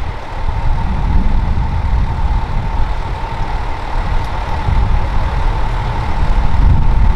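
Fire engine's diesel engine idling: a steady low rumble with a thin steady whine above it.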